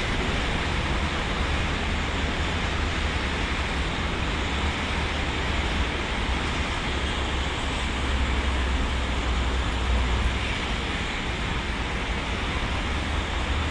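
Steady outdoor background noise, a constant hiss over a low rumble, with no distinct events; the rumble swells slightly about eight to ten seconds in.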